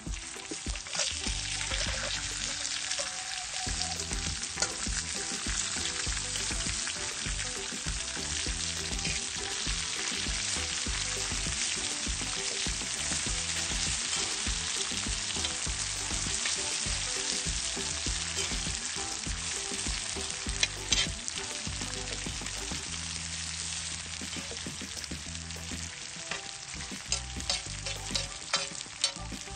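Scorpions, garlic and chili sizzling steadily in hot oil in a large metal wok, stirred with a metal spatula that scrapes and clinks against the pan, with sharper clinks about two-thirds of the way through and near the end.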